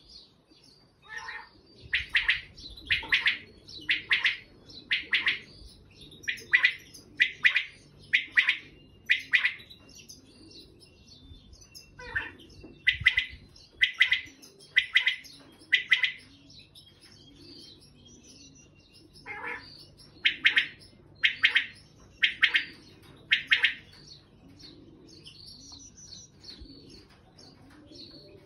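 A male common quail gives its "beating" call: sharp, loud notes about one a second, in series of four or five with short pauses between series.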